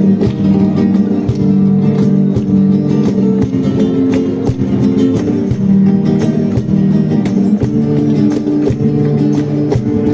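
Two Spanish guitars strumming an instrumental passage in flamenco style, with hand claps (palmas) keeping the rhythm.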